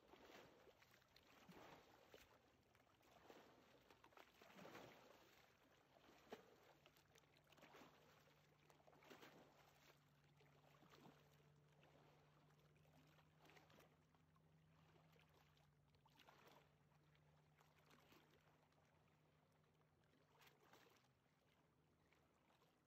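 Near silence: a few faint, irregular soft swishes and a faint low steady hum.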